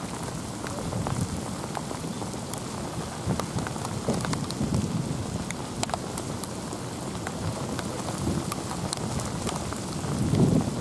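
A sudden heavy downpour: steady rain with many sharp ticks of drops landing close by, and a low swell of sound near the end.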